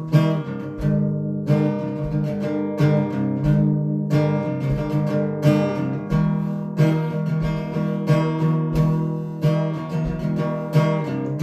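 Acoustic guitar strummed in a steady rhythm, chords ringing between strokes, as an instrumental passage of a folk-style song.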